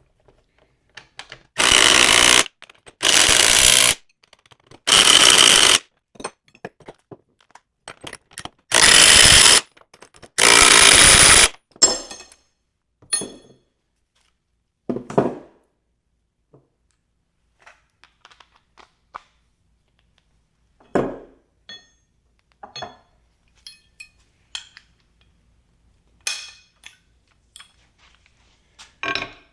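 Brushed Milwaukee M12 impact driver hammering bolts tight in five loud bursts of about a second each, in the first dozen seconds. Scattered light clicks and knocks follow.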